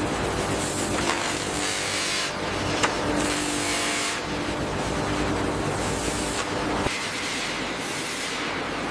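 Factory machinery running: a steady hiss with a low hum, a sharp click about three seconds in, and an abrupt change in the noise about seven seconds in.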